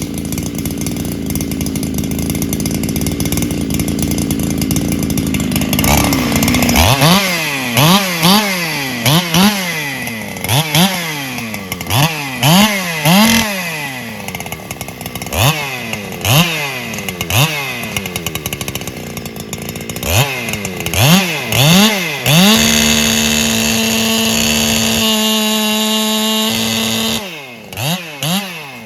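Solo 681 two-stroke chainsaw running steadily. From about seven seconds in it is revved up and let fall back over and over, roughly once a second. Near the end it is held at a steady high pitch for several seconds before the revs drop off.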